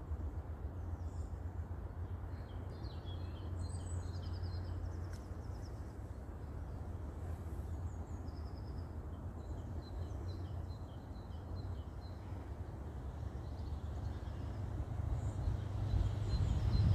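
Small songbirds chirping and singing in short, high, repeated trills over a steady low rumble; the rumble grows louder near the end.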